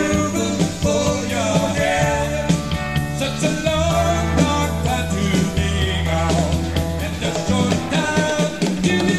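Rock band music: sustained bass notes under shifting melodic lines.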